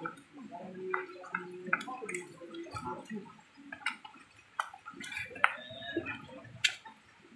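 Hands squeezing and kneading wet carp bait dough in a stainless steel bowl: irregular squelching, with sharp clicks here and there.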